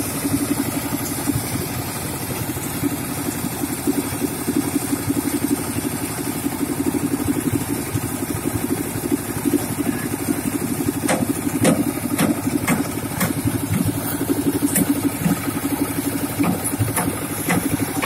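Engine of a portable concrete mixer running steadily, with a strong low hum. A few sharp knocks come about eleven to thirteen seconds in.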